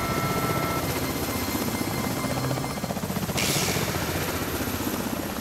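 Mi-24 helicopter flying, its rotor chopping rapidly and evenly, with a brief rush of hiss about three and a half seconds in.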